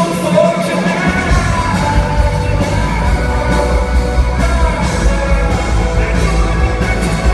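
Live rock band and singer performing in a concert hall, with the drums and bass coming in hard about a second in. A crowd yells over the music.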